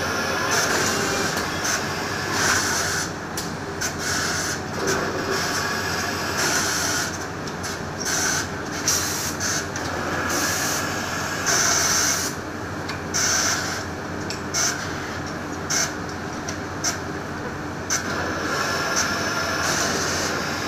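Automatic duck-down filling machines running: a steady mechanical hum with irregular short hisses of compressed air blowing down through the filling nozzles.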